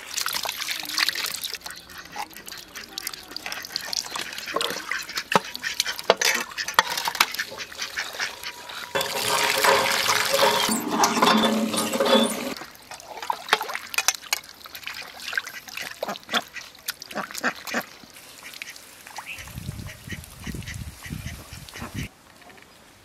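Village hand pump being worked: the handle squeaks and knocks with each stroke, and water splashes from the spout.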